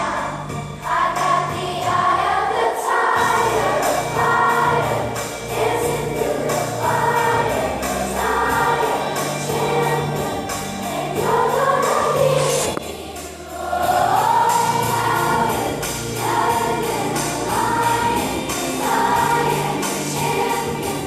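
A children's choir singing a song together over an instrumental accompaniment with a steady bass line and beat.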